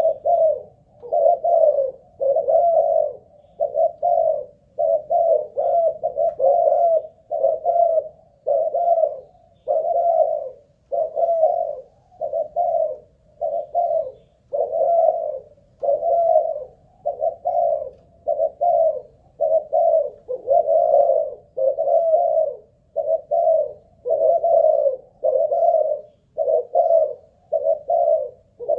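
Spotted dove of the Malaysian cooing breed cooing without a break: a steady run of low, mellow coos, about one a second.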